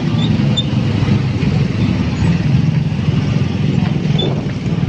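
Road traffic: motorcycle and car engines running steadily at low speed, a continuous low rumble.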